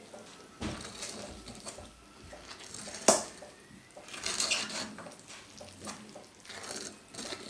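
A metal skewer being pushed again and again into fermenting sauerkraut in an enamel bucket, with soft scrapes and crunches and a sharp metallic clink about three seconds in. The piercing lets the fermentation gas escape from the packed cabbage.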